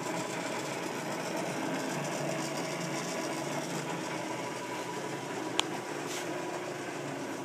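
South Bend lathe with its 575-volt motor running steadily and smoothly, the drive in neutral. A single sharp click about five and a half seconds in.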